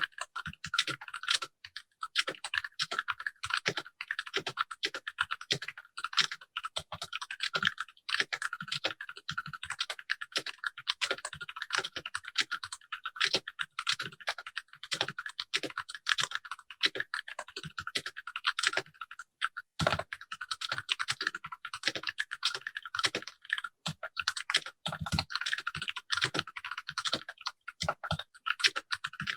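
Continuous fast typing on a Keychron K6 compact mechanical keyboard set directly on a bare desk with no desk mat: a dense, uneven run of sharp key clicks, with an occasional deeper thud among them.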